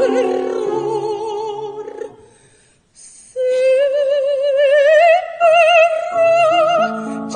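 Female opera singer singing with a wide vibrato, accompanied by a Petrof grand piano. Her phrase dies away about two seconds in and, after a short silence, she comes in alone on a long held note that climbs slowly, the piano joining again about six seconds in.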